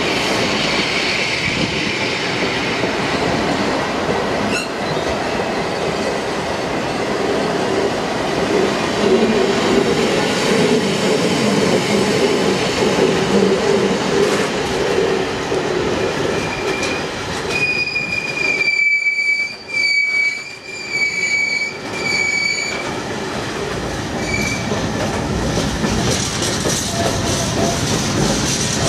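A long rake of open box freight wagons rolling past, with steady wheel-on-rail running noise. In the second half, a high, steady wheel squeal sounds in several short stretches.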